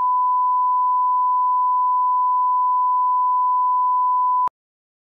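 Television 'no signal' test tone: one steady, pure beep at 1 kHz that cuts off abruptly with a click about four and a half seconds in.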